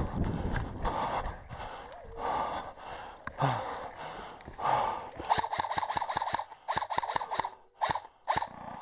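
Heavy panting breaths, about two a second, then several short full-auto bursts from an M4 airsoft rifle: rapid clicking shots over the buzz of its gearbox, starting about five seconds in.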